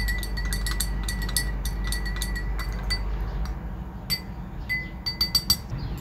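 Metal spoon stirring liquid in a glass tumbler, clinking quickly and repeatedly against the glass over a faint steady ring. After about three and a half seconds the clinking thins out to a few separate, louder clinks near the end.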